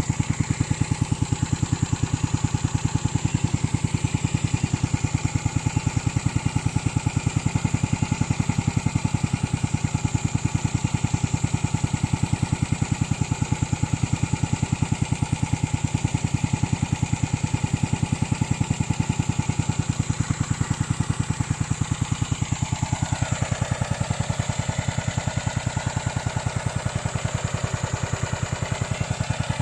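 Remote-control lawn mower's engine running steadily with an even firing rhythm and a steady high whine over it; a higher tone slides down in pitch about three quarters of the way through.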